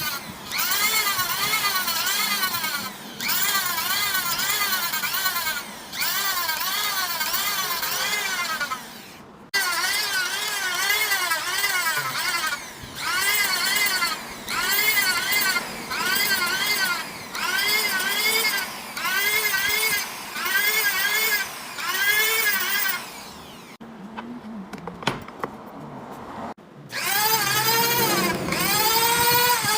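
Power sanding tool working a CNC-machined surface, its motor pitch rising and falling with each pass, about one to two passes a second. The passes come in runs broken by short pauses, with a longer pause about three-quarters of the way through.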